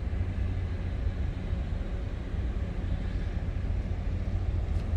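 Car driving slowly, with a steady low engine and road rumble heard from inside the cabin.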